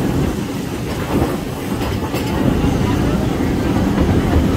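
Walt Disney World Railroad steam train rolling along the track, heard from aboard a passenger car: a steady rumble of the moving train, with a few wheel clicks about two seconds in.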